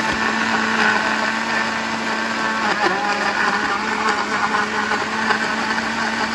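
Countertop blender running steadily at full speed, blending mature coconut flesh with coconut water and almond milk into homemade coconut milk. The motor keeps one even pitch under the churning of the liquid.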